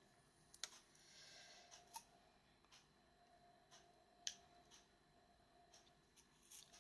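Near silence broken by faint, scattered small clicks, about seven or eight spread over several seconds, from sewing needles and a small clear plastic needle tube being handled in the hands. A light rustle comes between the clicks.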